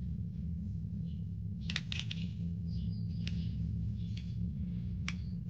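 Hard plastic toy-kit parts clicking and tapping against each other as they are handled and fitted together: a few quick clicks about two seconds in, then single clicks about once a second. A steady low rumble lies under them.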